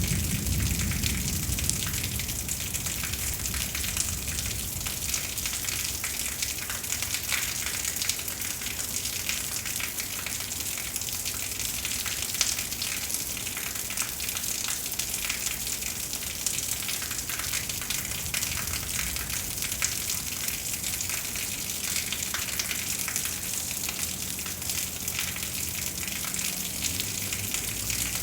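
Steady rain during a thunderstorm, a dense hiss full of fine drop ticks. A low rumble fades away in the first couple of seconds.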